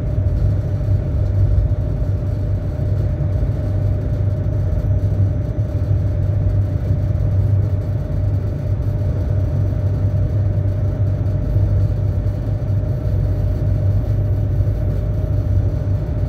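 A ship's engine droning steadily: a deep, even hum with a constant higher tone above it.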